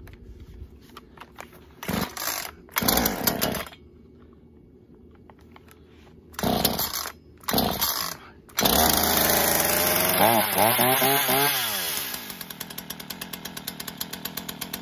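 Ryobi 14-inch two-stroke gas chainsaw being pull-started warm: four sharp pulls of the starter cord, then the engine catches and runs at high speed, its pitch falling as it drops back to a fast, pulsing idle.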